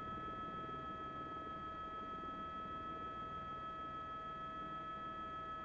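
A steady high whine made of several unchanging tones over a low, even hiss, with no speech.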